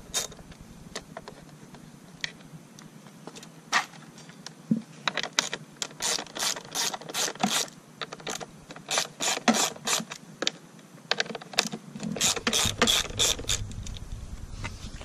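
Hand socket ratchet clicking as it backs out 10 mm bolts: a few scattered clicks at first, then quick runs of clicks with short pauses between them.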